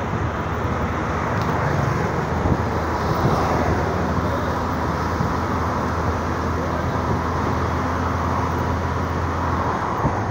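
Steady road traffic noise heard from a moving vehicle, a constant low engine drone under the rush of tyres and passing cars.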